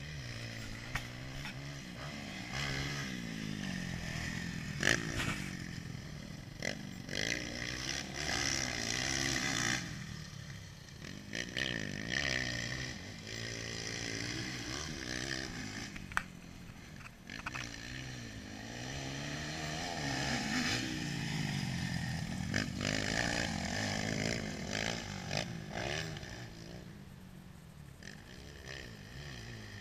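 Motocross dirt bike engine heard from on board, revving up and dropping back over and over as it is ridden around the track, with a few sharp knocks.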